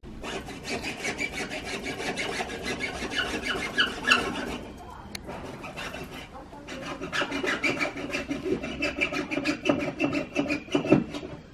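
Hand saw rasping through a black lawn edging strip in quick back-and-forth strokes, easing off briefly about halfway through before resuming.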